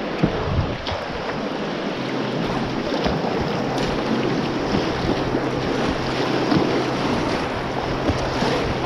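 Rushing whitewater of Class II/III rapids around a whitewater kayak, with wind noise on the camera's microphone.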